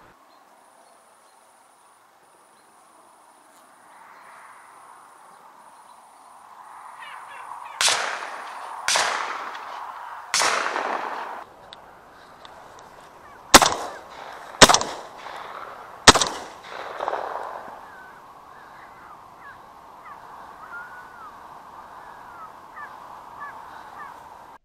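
Shotgun fired six times in two bursts of three, about a second apart, the last three the loudest and sharpest, at a flock of ducks that are calling throughout.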